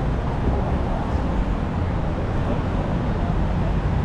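Steady city street ambience: the low rumble of road traffic.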